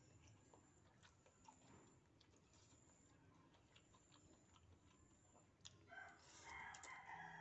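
Near silence with faint clicks of eating noodles with a fork, then about six seconds in a rooster crows, one long call drawn out and falling slightly in pitch.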